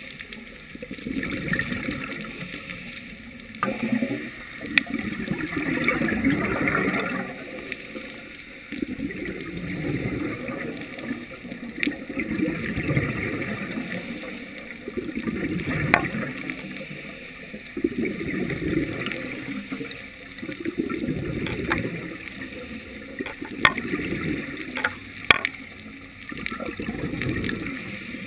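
A scuba diver breathing through a regulator, heard through a GoPro's underwater housing: rumbling, gurgling bursts of exhaled bubbles swell and fade every few seconds. A few sharp clicks come through now and then.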